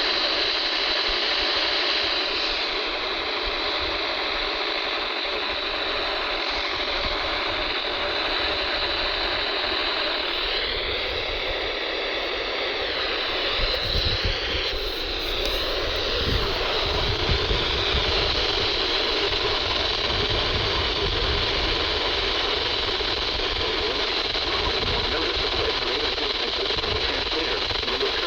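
Steady hiss of static from a weakly received NOAA Weather Radio broadcast, with faint wavering whistles of interference about halfway through.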